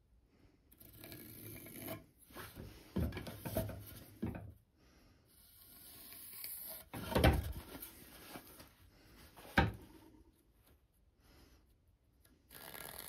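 Pencil lead scratching along the edge of a spruce board, drawing the thickness line, in several short strokes, with the board being handled and shifted on the bench: a heavier wooden knock about seven seconds in and a sharp tap at about nine and a half seconds.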